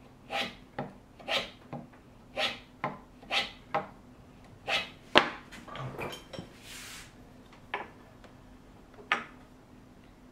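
Small hand plane taking quick shaving strokes along the edge of a hardwood part, about five passes in the first five seconds, each a short swish with a sharp scrape at its end. Then a brief hiss and two sharp knocks.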